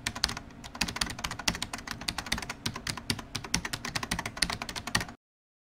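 Computer keyboard typing sound effect: a rapid, irregular run of key clicks that cuts off suddenly near the end, matching text being typed out on screen.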